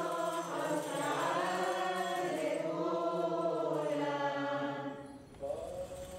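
Women of a Syriac Orthodox congregation chanting a liturgical hymn together, in long held notes that slowly rise and fall; the singing fades out about five seconds in.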